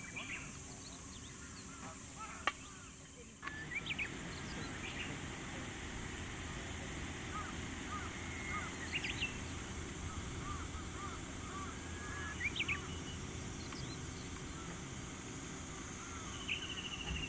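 Rural outdoor ambience of birds chirping and calling with short rising and falling notes, over a steady high insect drone. The background changes abruptly about three and a half seconds in.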